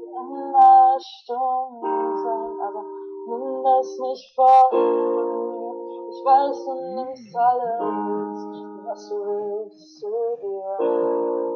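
Background music: a home-recorded cover of a German pop song, a woman singing over held instrumental chords, with the poor sound quality of a recording made through a computer.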